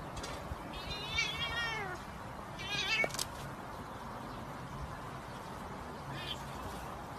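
Domestic cat yowling in wavering, quavering calls while play-fighting with another cat: a long call about a second in that falls in pitch, a shorter, louder one about three seconds in, and a faint short one near the end.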